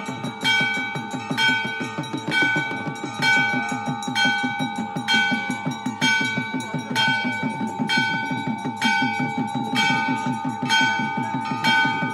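Hindu temple bell rung steadily, struck about once a second, each strike ringing on, with a rapid low beat underneath.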